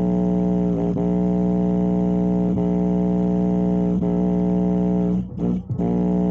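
Music playing through a Defender subwoofer speaker system at full volume: a loud, held, distorted pitched tone that breaks off briefly twice a little over five seconds in.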